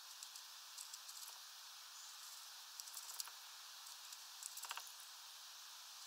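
A tit pecking at a mesh-bagged fat ball: a few small clusters of faint taps and clicks as its bill and claws work the netting, the last cluster a little louder, over a steady low hiss.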